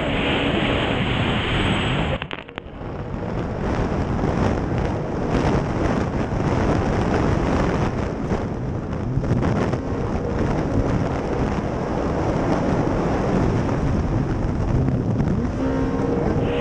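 Wind and water spray rushing over the onboard microphone of a racing powerboat at speed, the engine mostly buried under it. The noise dips briefly about two seconds in, and the engine's pitch comes through again near the end.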